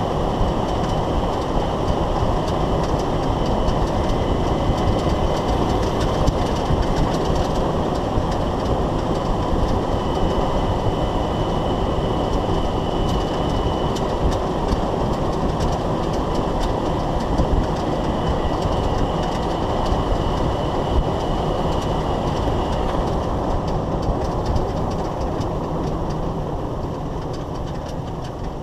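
Underside of a Jeep Wrangler YJ on the move: steady road and drivetrain rumble from around the Corporate 14-bolt rear axle and tyres. It carries many faint rattling clicks and a thin steady high whine. The noise dies down over the last few seconds as the Jeep slows.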